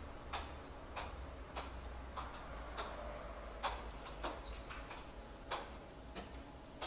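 A series of faint, sharp clicks, evenly spaced about every half second at first and then irregular, over a low steady hum.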